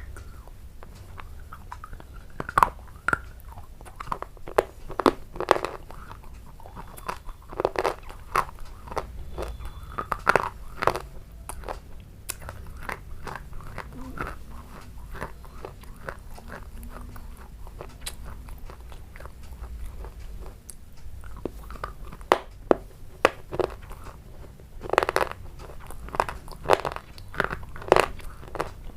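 A person biting and chewing crunchy food close to the microphone, in clusters of sharp crunches, with fewer crunches through the middle stretch.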